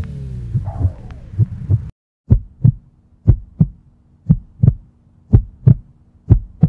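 Outro music sliding down in pitch cuts off about two seconds in. Then a heartbeat follows: a double thump (lub-dub) about once a second, five times.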